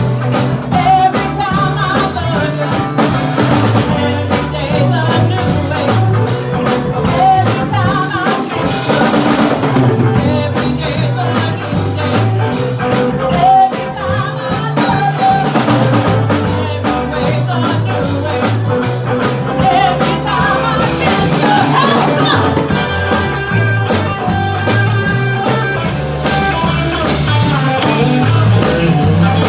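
Live band playing, with a drum kit keeping a steady beat over a moving low bass line.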